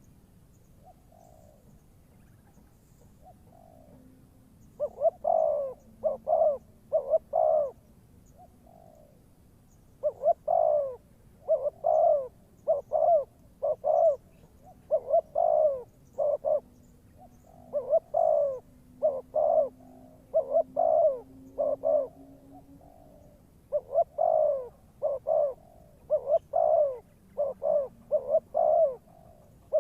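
Spotted dove cooing in repeated phrases of several notes, each note sliding down in pitch. The phrases come in four bursts a few seconds apart, the calls of a decoy dove luring wild doves.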